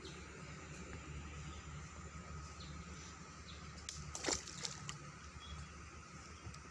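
Shallow water sloshing faintly around someone wading, with one short splash a little over four seconds in.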